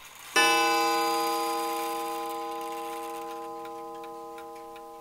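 A mechanical clock strikes once: a single chime note rings out and fades slowly over about four seconds, with the clock's faint ticking underneath.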